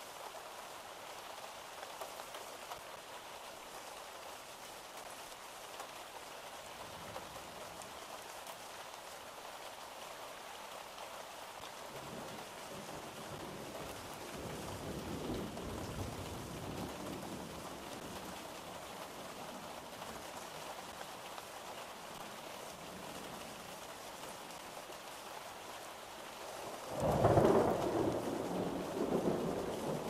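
Steady rain falling, with a soft rumble of thunder about halfway through and a louder roll of thunder near the end, the loudest sound here.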